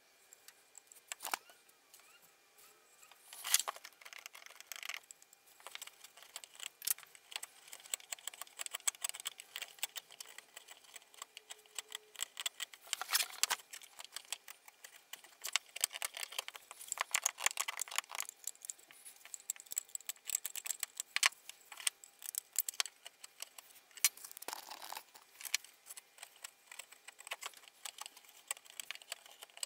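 Irregular clicking, tapping and rattling of small hard objects, in quick scattered strikes, with louder clusters a few seconds in, about halfway through and near the end.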